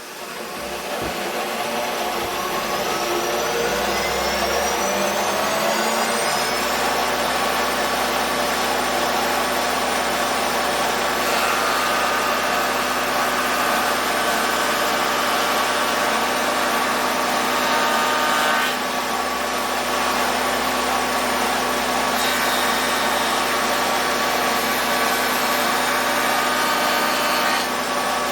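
Router motor with an ogee bit starting up, its pitch rising over the first six seconds or so, then running steadily at full speed.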